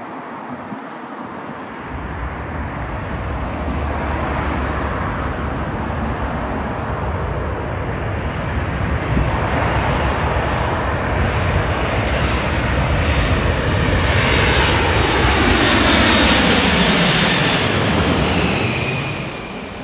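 Four-engined jet airliner on landing approach passing low overhead. Its engine noise swells steadily with a high whine, is loudest as it passes overhead, then drops in pitch and fades as it moves away near the end.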